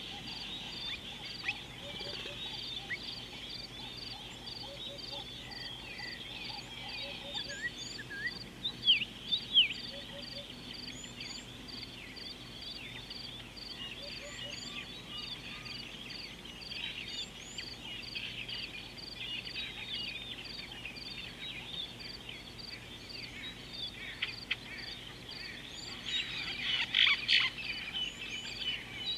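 A chorus of many wild birds chirping and whistling over one another, with one high note repeated evenly about twice a second. Louder bursts of calls come about a third of the way in and again near the end.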